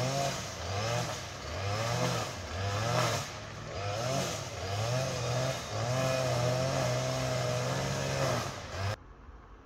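A vehicle engine revving, its pitch rising and falling again and again, stopping abruptly near the end.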